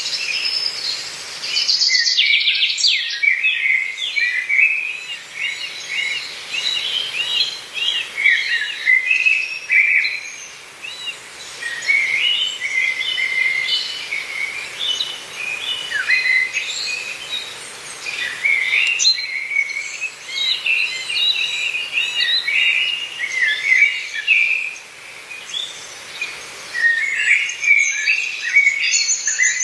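Wild songbirds singing together, a dense overlapping mix of short chirps and warbles. A fast high trill comes in about two seconds in and again near the end, over a faint steady hiss.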